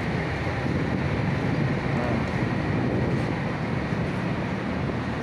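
Steady wind noise on the microphone over the low, even hum of a large ship underway, heard from its open deck.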